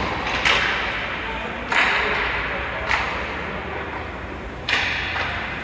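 Ice hockey play in a rink: four sharp knocks of stick, puck and boards, each trailing a brief hiss.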